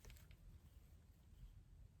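Near silence: faint low room tone with a few soft ticks.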